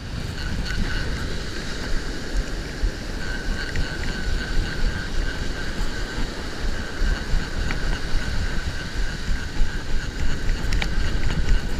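Wind buffeting the microphone over the steady wash of surf breaking on the beach, with a faint steady high whine running underneath.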